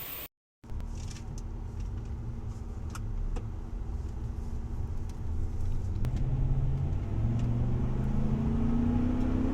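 Ford Raptor pickup driving, its engine running steadily and then rising in pitch as it accelerates from about six seconds in. No grinding from the front wheels, now that the broken vacuum line that kept the left front hub from disengaging 4WD has been repaired.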